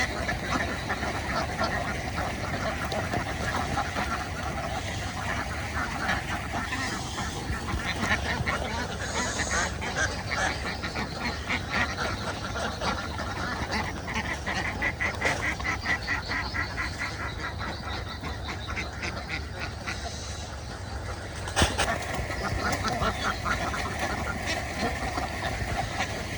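A large flock of domestic ducks quacking continuously, many short calls overlapping in fast chattering runs. A single sharp knock sounds near the end.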